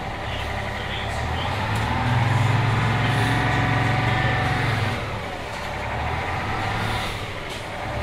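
Detroit Diesel 6V71 two-stroke V6 engine of a 1980 Grumman Flxible 870 transit bus running. It rises in revs with a climbing whine, holds, falls back about five seconds in, then picks up again near the end.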